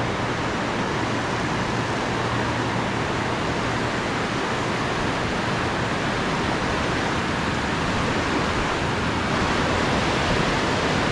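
Steady rush of ocean surf washing over the shallows, an even hiss with no breaks.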